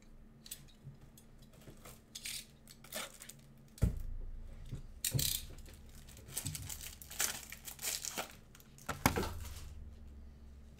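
Gloved hands handling trading-card packaging: plastic and wrapper crinkling and tearing in short, irregular crackles. There is a sharp knock about four seconds in and another about nine seconds in.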